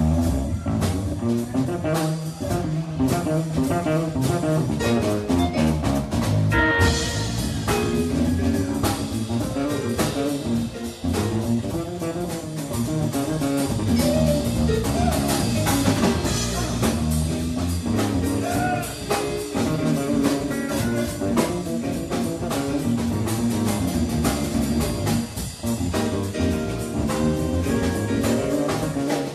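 A live band playing: electric guitars over a drum kit, with a steady beat.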